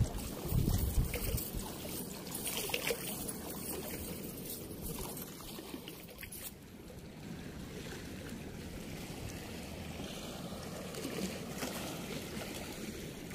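Steady rush of river water flowing down a concrete weir, with some low bumps on the microphone in the first couple of seconds. The rush becomes quieter and smoother about six and a half seconds in.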